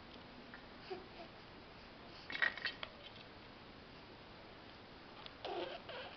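Plastic beads of a pram toy chain clacking together in a brief rattle a little over two seconds in, as the baby tugs at it. A short vocal sound comes near the end.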